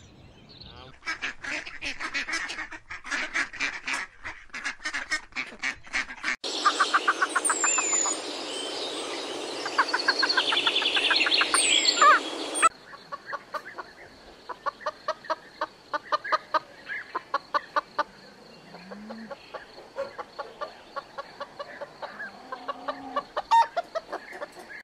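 A run of bird calls from three clips. First come rapid repeated calls from an unseen bird. About six seconds in, a toco toucan gives its croaking calls in quick repeated notes over a hiss. From about halfway, a hen clucks in short notes repeated at an even pace.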